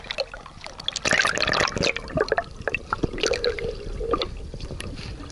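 Lake water sloshing, gurgling and dripping against a waterproof camera held at the waterline, which dips below the surface partway through.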